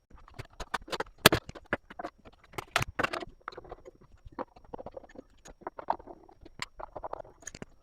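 Old fluorescent under-cupboard light fittings being pulled off and handled: a run of irregular knocks, clicks and rattles, the loudest about a second in and about three seconds in.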